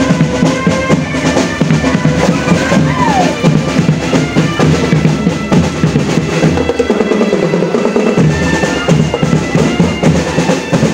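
Marching drum band playing: snare and bass drums beating a dense, fast rhythm with rolls, and held pitched notes sounding over the drums.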